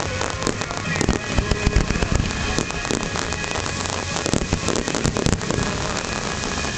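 Aerial fireworks bursting overhead: rapid, irregular bangs and crackling pops, thickest about a second in and again near five seconds.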